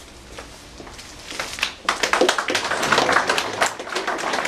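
Audience clapping: after a quiet stretch of room noise, many hands start clapping together about two seconds in and keep on.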